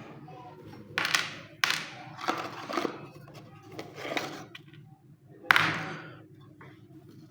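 Packaging being opened and handled by hand: about five sharp rustling, scraping bursts, each starting suddenly and fading, over a low steady hum.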